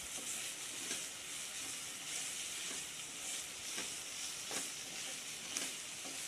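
Chopped onion and green capsicum sizzling in oil in a nonstick pan, with a wooden spatula stirring and scraping now and then.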